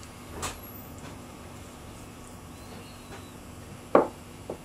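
Brass hex-bar tool handle set down on a wooden workbench: one sharp knock about four seconds in, followed by a lighter tap. A small click near the start from handling the parts.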